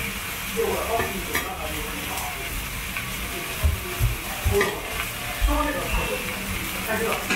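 Batter sizzling on a hot table-top griddle as it is stirred and worked. Several dull knocks come between about three and a half and five and a half seconds in.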